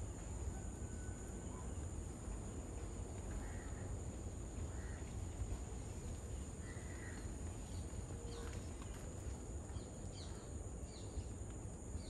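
Lesser whistling ducks giving short, thin whistled calls, a few scattered at first and coming more often in the last few seconds. A steady high-pitched hum and a low rumble run underneath.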